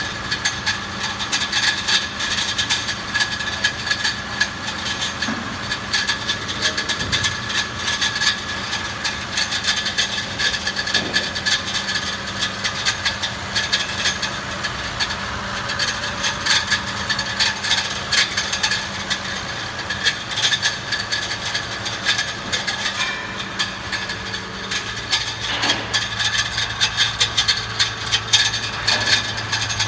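Mitsubishi Pajero Sport engine running with a harsh metallic grinding rattle, a fast, unbroken stream of clicks over the engine hum, which shifts lower after about twenty seconds. The cause is a loose bolt between the torque converter and the flywheel, which the spinning flywheel keeps striking inside the housing.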